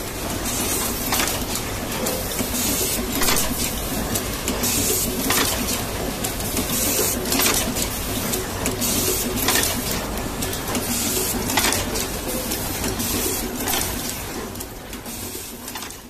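Automatic wire cutting, stripping and terminal crimping machine running, with a sharp mechanical clack every one to two seconds as it cycles through wires, over a steady clatter of factory machinery.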